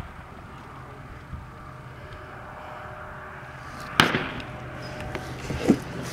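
A single AR-15 rifle shot about four seconds in: one sharp crack with a short echoing tail. A smaller knock follows about a second and a half later.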